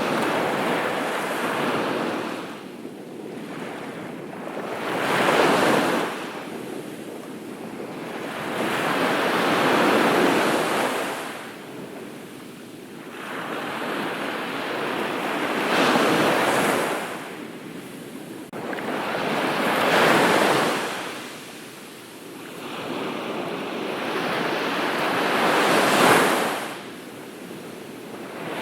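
Ocean waves breaking and washing up a beach, surging and falling back in swells about every four to six seconds.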